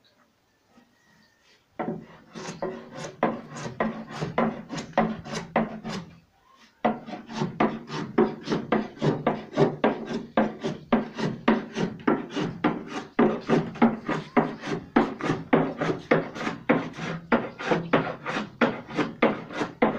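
A hand tool working wood in rhythmic back-and-forth strokes, about three a second, like rasping or sawing. It starts about two seconds in and pauses briefly near the six-second mark.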